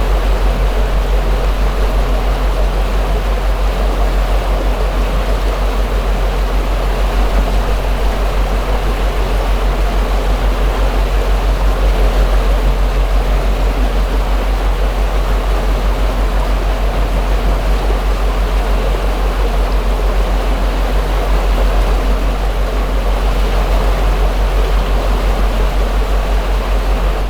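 Houseboat's engine running steadily with a deep, evenly pulsing hum, under the constant wash and splash of water against the hull as the boat moves along.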